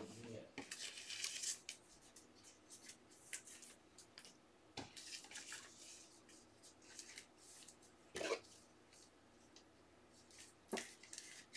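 Faint rustling and a few scattered soft clicks and taps of hands working at a desk.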